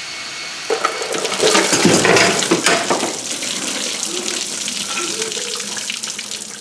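Engine coolant gushing out of a truck radiator through the disconnected lower radiator hose, pouring and splashing onto a concrete floor and into a bucket. The gush swells about a second in and is loudest around two seconds, then settles into a steady pour.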